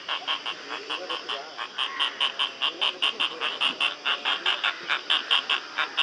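Asian openbill stork calling in a rapid series of short, dry, clattering clicks, about five or six a second, with a faint murmur of other lower calls underneath.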